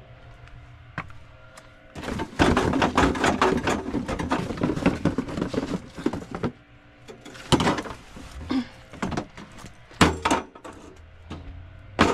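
Household items clattering and knocking as things are moved about and pulled out in a cluttered storage shed, a dense spell of rattling about two seconds in, then a few separate knocks.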